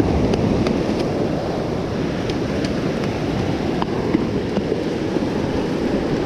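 Waves breaking and washing up the sand in a steady rush, with wind on the microphone.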